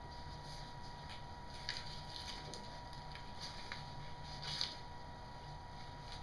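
Soft rustling and brushing as a vinyl-covered lead shield is handled and tucked into place: a few faint scuffs, the loudest about four and a half seconds in, over a faint steady hum.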